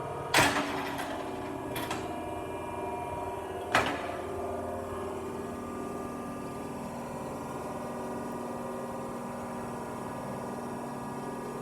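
Hydraulic unit of a Diacro CNC bender running with a steady multi-tone hum during a dry bend of the swing arm. There is a sharp clunk about half a second in and another near four seconds.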